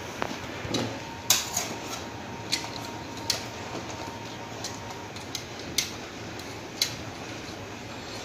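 Scattered light clicks and taps of hand tools and wire as a neutral wire is fitted and screwed into a power socket's terminal, about a dozen sharp ticks spread unevenly.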